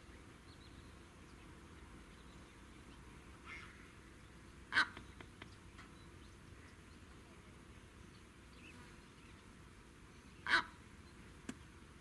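Two short, loud bird calls about six seconds apart, with a fainter call just before the first, over a faint steady background hiss.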